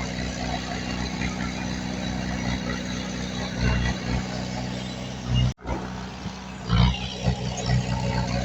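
Heavy diesel engine of earthmoving equipment running with a steady low rumble. It swells louder briefly a few times, and the sound cuts out for an instant a little past halfway.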